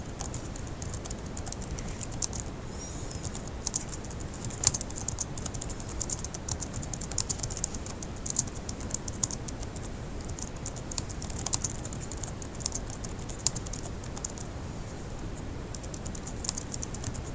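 Fast typing on a laptop keyboard: a rapid, uneven stream of light key clicks, with a short pause about three seconds in.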